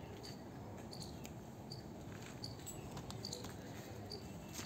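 Quiet outdoor background with faint, short, high chirps recurring irregularly about every half second to a second, and a few faint light ticks.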